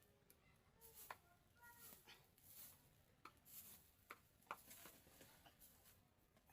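Near silence, broken by faint scattered clicks and brief soft rustles.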